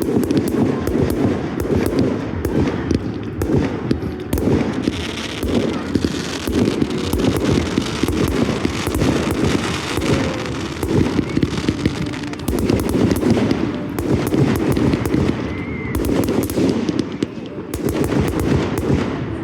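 Aerial fireworks firing in a dense, continuous barrage of rapid bangs and crackle, typical of a display's finale.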